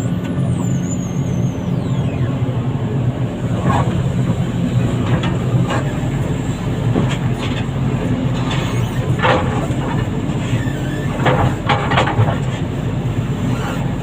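Heavy diesel engine running steadily, with intermittent metallic clanks. A high wavering whistle falls in pitch near the start.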